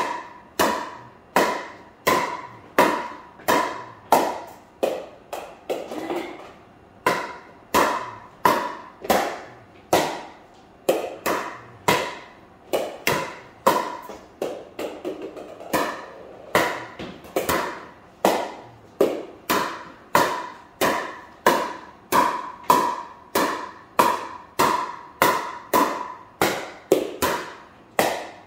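Pickleball paddle hitting a plastic pickleball in a steady volley rally: a sharp hollow pop about every two-thirds of a second, each ringing briefly, with a few softer, quicker taps around the middle.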